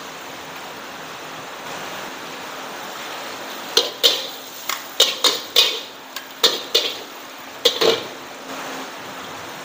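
Metal kitchen utensils clanking against cookware while fried noodles are served: about ten sharp, short-ringing clinks between about four and eight seconds in, over a steady background hiss.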